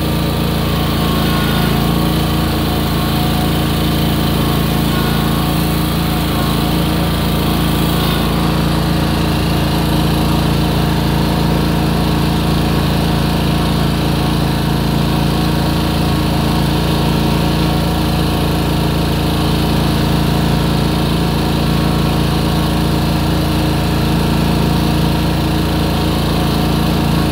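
Riding lawn mower's engine running steadily at a constant speed, heard from the operator's seat.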